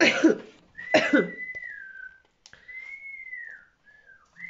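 Two short, loud bursts of voice, then whistling: several long held notes that glide slowly and sag downward in pitch.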